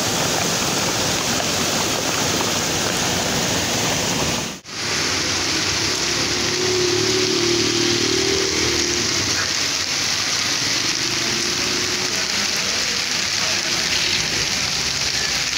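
Heavy monsoon rain pouring steadily, with muddy floodwater rushing along a street gutter and under a culvert for the first few seconds. After a sudden break about four and a half seconds in, rain falls on a wet street, and a passing vehicle's engine hums faintly in the middle.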